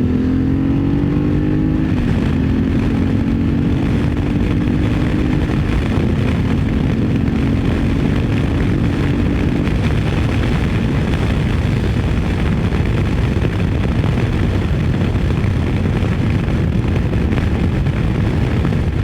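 BMW F850GS parallel-twin motorcycle engine accelerating hard: its note climbs, then steps down at gear changes about two and six seconds in. After about ten seconds the engine note gives way to a steady rush of wind noise at speed.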